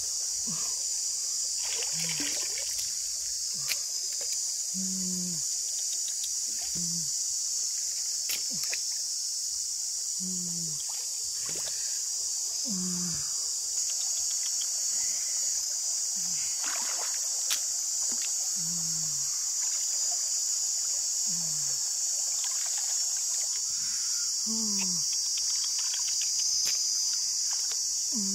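Steady high-pitched insect chorus, with water trickling and sloshing as hands work through a shallow stream. Short, low calls, each falling in pitch, repeat every second or two.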